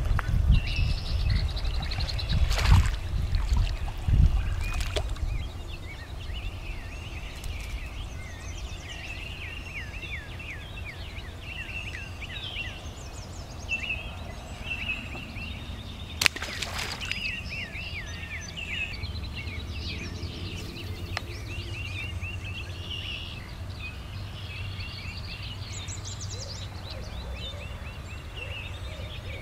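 Outdoor birdsong: many birds chirping and singing in quick, repeated short notes throughout. For the first few seconds a low wind rumble on the microphone is louder, and a few sharp knocks stand out.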